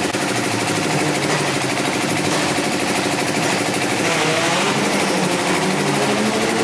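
Drag-race car engine running, then revved with a rising pitch from about four seconds in.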